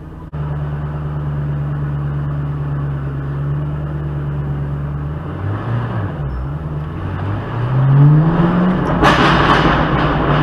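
2008 Ford Mustang GT's 4.6-litre V8 through an SLP Loudmouth exhaust: a steady low exhaust drone, then a rev with rising pitch, followed near the end by a rapid string of exhaust pops and crackles as the throttle comes off.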